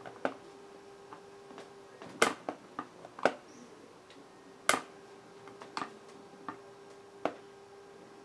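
Irregular sharp clicks and taps from a laptop being handled and opened, with a few louder knocks, over a faint steady hum.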